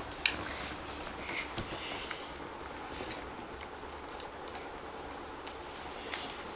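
Quiet room tone with faint rustles and light taps as small plush bears and a tulle doll dress are handled.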